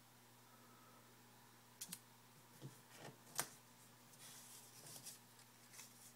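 Faint scattered clicks and light rustling, about half a dozen small handling sounds, the sharpest about three and a half seconds in, over a low steady hum.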